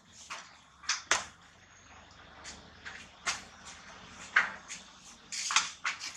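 Irregular soft clicks and wet smacks, about a dozen, from long-tailed macaques lip-smacking and picking through fur while grooming, loudest just after a second in and in the last two seconds.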